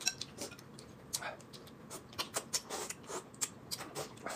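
Two people eating hot and sour glass noodles (suanlafen) with chopsticks: short, irregular slurps and mouth sounds mixed with chopsticks clicking against ceramic bowls.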